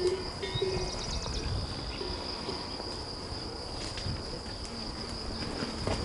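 Insects chirring in a steady high-pitched trill, over a faint low rumble.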